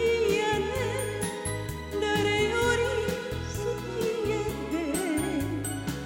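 A woman singing a Japanese kayōkyoku song into a handheld microphone, her melody wavering with vibrato, over a karaoke backing track with a steady bass line.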